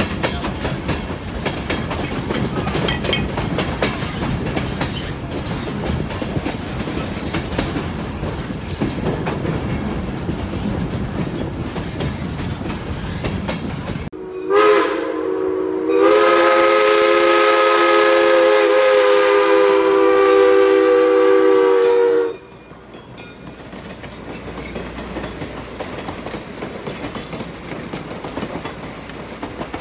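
Steam locomotive chime whistle, several notes sounding together: a short toot, then one long blast of about six seconds that cuts off sharply. Before it, the passenger train rolls with wheels clacking over the rail joints.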